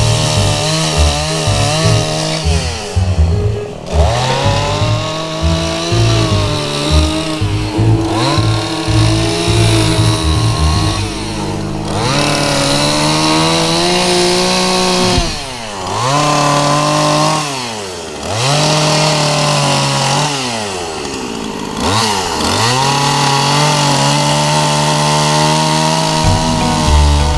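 Chainsaw carving a pine log, the engine revving up and dropping back again and again as it cuts, with brief dips toward idle about halfway through.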